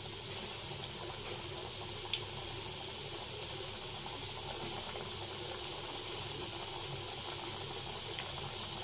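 Vermicelli-coated potato nuggets sizzling steadily as they deep-fry in hot oil, with a single sharp click about two seconds in.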